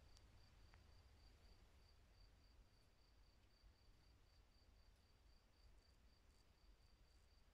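Near silence: room tone, with a faint high chirp pulsing evenly about three times a second.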